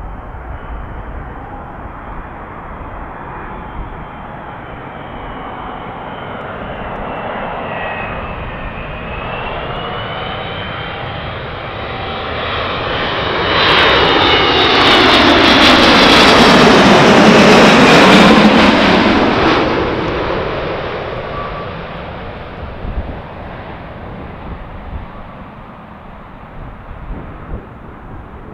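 Boeing 777 on final approach, its twin jet engines whining and growing louder as it flies low overhead. The sound is loudest a little past the middle, where the pitch drops as the plane passes, and then it fades as the jet flies on toward the runway.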